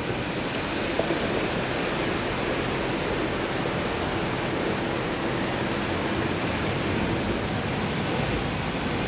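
Steady rushing road and wind noise inside a moving car, with a faint steady hum through most of it.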